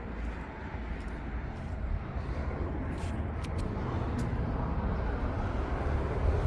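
Steady low outdoor rumble, growing gradually louder, with a few faint sharp clicks near the middle.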